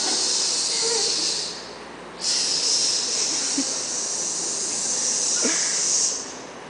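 A loud high hissing noise in two long bursts: one stops about a second and a half in, and the next starts half a second later and runs for about four seconds.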